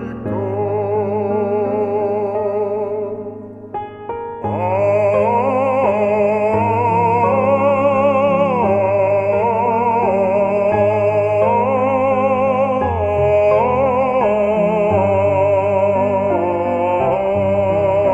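Background music: a slow piece with a sustained, wavering melody over held bass notes, briefly thinning out about four seconds in.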